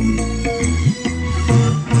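Kecimol music, the Sasak street-band style of Lombok: a deep, sliding bass line under held melody notes, with sharp percussion hits keeping a steady beat.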